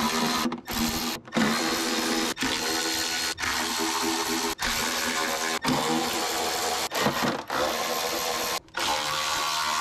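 Cordless electric ratchet spinning out the timing cover bolts. The motor runs in about nine bursts of roughly a second each, with brief breaks between them.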